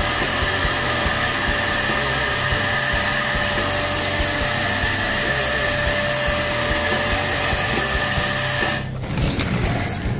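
HVLP paint sprayer running steadily while spraying Plasti Dip onto a car: a constant hissing blow with a steady whine. It cuts off about nine seconds in, and a few clicks follow.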